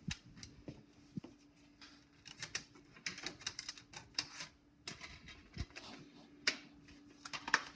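Irregular plastic clicks and light taps from handling a DVD case and setting a disc on an external disc drive, over a faint steady hum.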